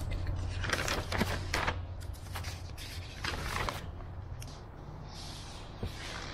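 Large paper plan sheets rustling and crinkling as they are leafed through, in a few separate bursts, over a low steady hum.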